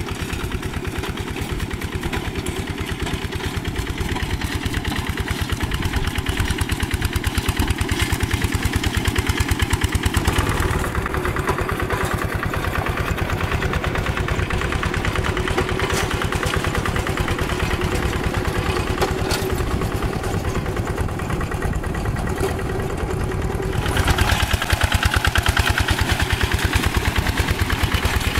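Single-cylinder diesel engine of a walk-behind two-wheel tractor running steadily with a fast even chug, under load as it drags its cage wheels and plough through paddy mud. It gets louder and closer about three-quarters of the way through.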